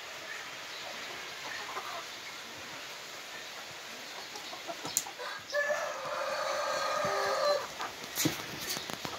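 Young Gilan chickens clucking, with one long, drawn-out call lasting about two seconds past the middle. A few sharp clicks are heard just before and after it.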